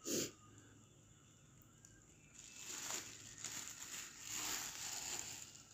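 Faint rustling that comes in about two and a half seconds in and goes on unevenly, after a brief soft sound at the very start.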